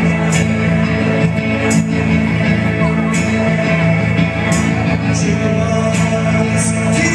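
A live rock band playing a song with guitars, heard from the crowd in a small club, with bright percussion accents about every second.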